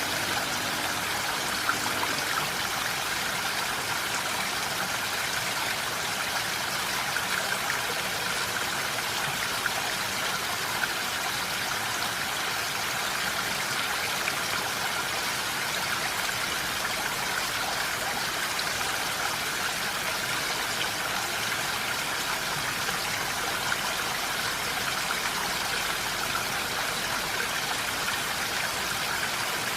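Steady rain falling in a forest: an even, unbroken hiss with a few sharper drop ticks.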